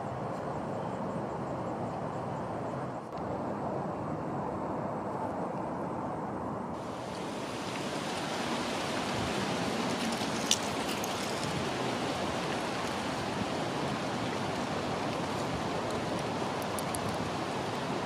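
Wind buffeting the microphone in a steady rush, turning louder and hissier about seven seconds in, with a single click about ten seconds in.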